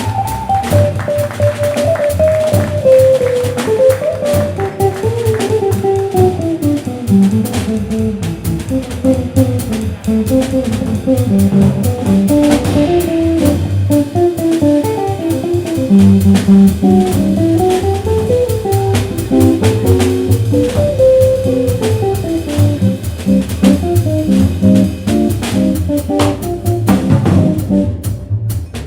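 Jazz guitar soloing in a quick single-note line over walking double bass and a drum kit, an instrumental break in a swing tune.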